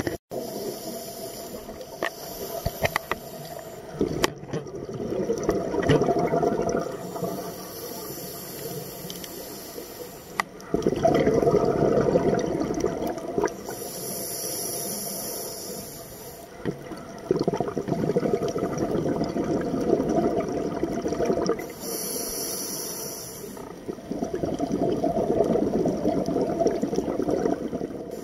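Scuba diver breathing through a regulator, about four breaths: a short high hiss on each inhale, then a longer gurgling rush of exhaled bubbles.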